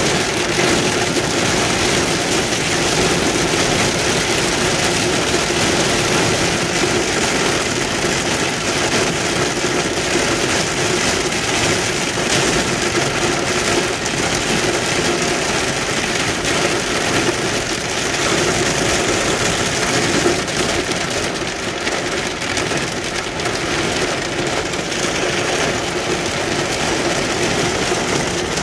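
Heavy rain beating steadily on a car's windshield and roof, heard from inside the cabin.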